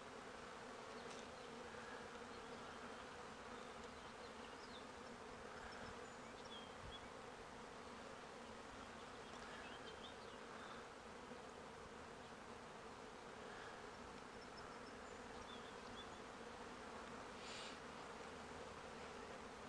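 Honey bees humming at a hive entrance: a faint, steady drone of many wings.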